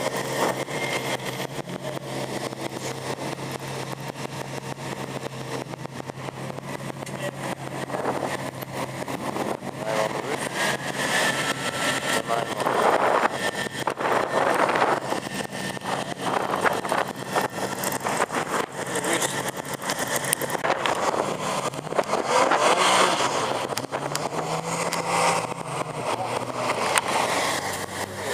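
Car engines running at idle, with louder surges near the middle and again later on.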